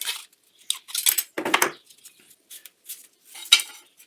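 Light metallic clinks and scrapes of thin aluminium flashing being handled as shims are folded and measured, with a sharp click about three and a half seconds in.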